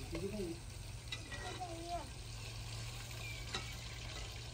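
Fish frying in hot ghee: a steady sizzle, with a low hum underneath.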